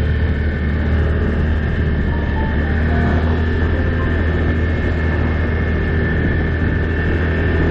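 ATV engine and drivetrain running steadily at an even speed, a deep hum with a steady higher whine above it.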